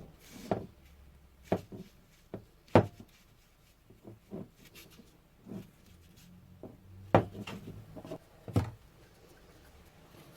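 A series of irregular knocks and taps of hard objects being handled on a work surface, about a dozen in all; the sharpest come about three seconds in and just past seven seconds.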